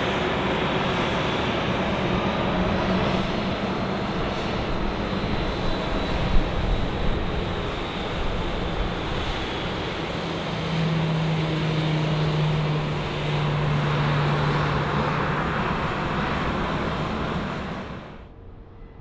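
Jet engines of a taxiing Boeing 737 running at low taxi thrust: a steady rushing noise with a low hum that swells for a few seconds midway. The sound falls away sharply near the end.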